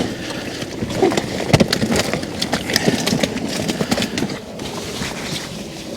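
A keepnet of fish being handled for weighing: irregular splashing, dripping water and knocks as the fish flap in the net, busiest in the first half.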